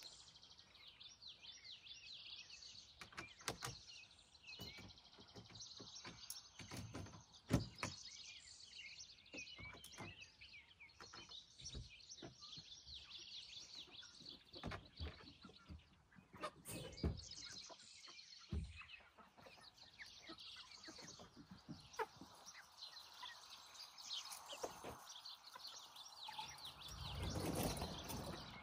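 Small birds chirping and twittering in the background, crossed by scattered footsteps and knocks on dry straw mulch and a wooden coop door. Near the end, a louder rush of rustling as the chickens come out into the run.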